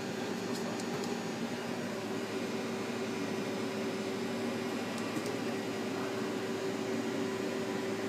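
2001 Topper TNL-100A CNC turning center running under power: a steady machine hum with a faint steady whine and a few faint ticks.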